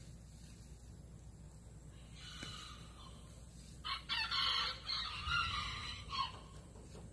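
Faint, rough chicken calls. A little sound comes in about two seconds in, and the calls are loudest from about four to six seconds in.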